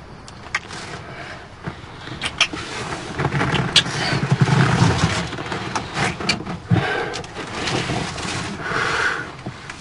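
A couple kissing: scattered wet lip smacks over the rustle of clothing and bodies shifting against each other.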